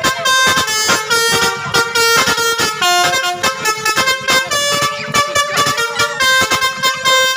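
Basuri telolet musical air horn on a bus playing a quick tune: a steady run of short multi-tone notes, changing pitch every fraction of a second, each note change marked by a short click.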